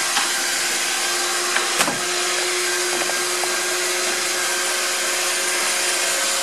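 iRobot Roomba 690 robot vacuum running: a steady whirring hiss with a faint steady hum, and a single knock about two seconds in.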